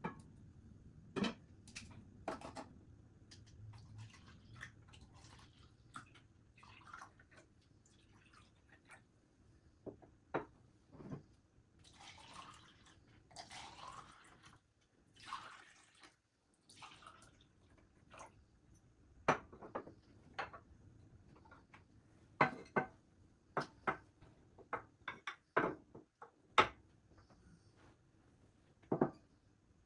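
Tableware clinking and knocking as cups, glasses and plates are handled on a glass tabletop, in many short sharp clicks. Around the middle, milk is poured from a glass jug into a cup for a few seconds.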